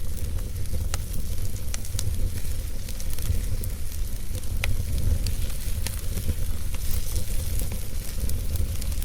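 Wood fire in a fireplace crackling, with scattered sharp pops and snaps over a steady low rumble.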